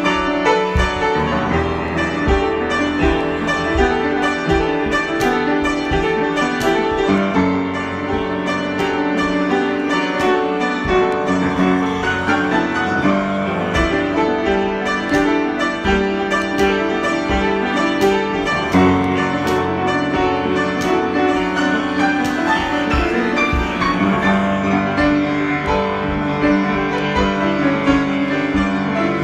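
Piano improvisation: a continuous flow of many notes and chords at an even loudness.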